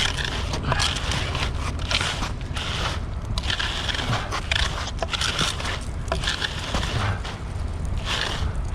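Hand tools scraping and dragging through wet concrete in repeated uneven strokes as it is spread and levelled, over a steady low engine hum.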